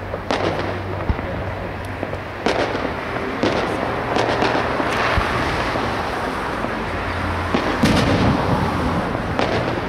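Fireworks display: aerial shells bursting in a run of sharp bangs, about one a second, over a steady hiss of crackle. The loudest bursts come near the end.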